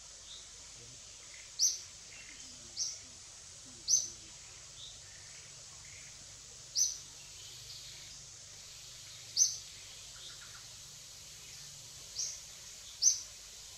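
A small bird's short, high chirp, repeated about seven times at irregular intervals, over a steady high-pitched hiss of forest background.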